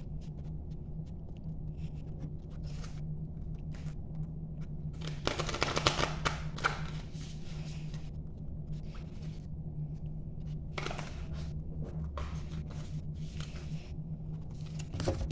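Oracle cards being shuffled by hand: a soft, irregular rustle of cards, with a louder flurry around the middle and a brief one later on. A steady low hum runs underneath.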